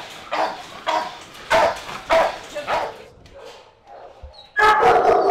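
A young shepherd-type dog barking in a kennel run, a little under two barks a second, falling silent about three seconds in. Near the end a louder, continuous din cuts in suddenly.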